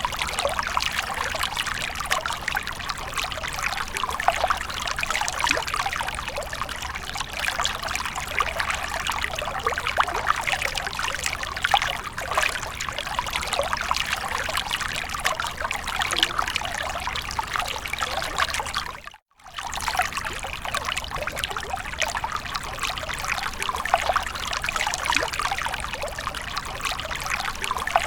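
Water from a fountain splashing and trickling steadily. It cuts out for a split second about two-thirds of the way through, then resumes unchanged.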